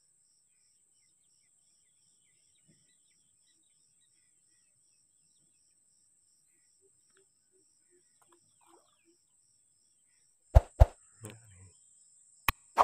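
Near silence with a faint steady high insect drone and a few soft bird notes, then, from about ten seconds in, several sharp loud clicks: the click sound effects of a like-and-subscribe button animation.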